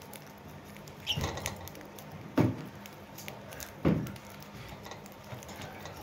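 Budgerigars eating seed from a steel bowl in a wire cage: light pecking ticks as they crack seed, and three louder knocks on the bowl about a second and a half apart.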